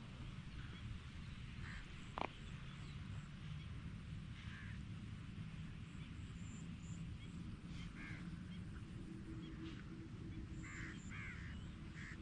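Crows cawing faintly, a call here and there and several in quick succession near the end, over a low steady rumble. A single sharp click about two seconds in.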